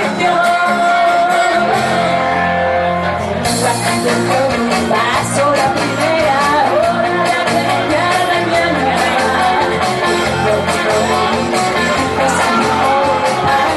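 A woman singing through a microphone over instrumental accompaniment, with long held notes that slide in pitch.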